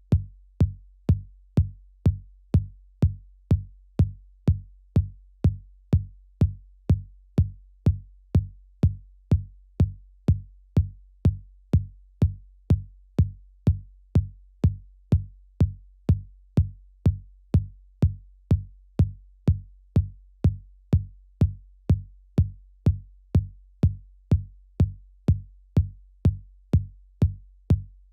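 Techno track opening on a lone electronic kick drum, beating steadily about twice a second over a low bass hum.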